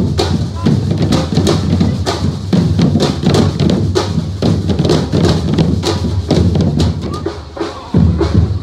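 Samba drum band playing in unison: deep rope-tuned bass drums thudding under a rapid, steady snare pattern. The drumming breaks off near the end.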